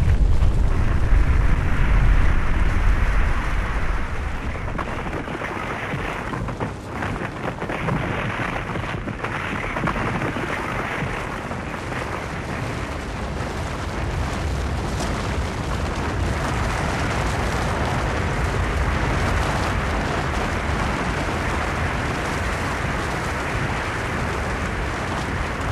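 Avalanche of snow and rock sliding down a mountainside: a continuous rushing noise over a deep rumble. The rumble is heaviest for the first few seconds, then settles into a steady rush.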